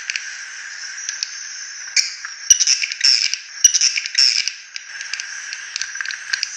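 Swiftlet lure call played back: a coarse, dense recording of swiftlet chirps and rapid twittering clicks over a steady high hum. The chirping grows louder and busier around the middle, with two sharp clicks.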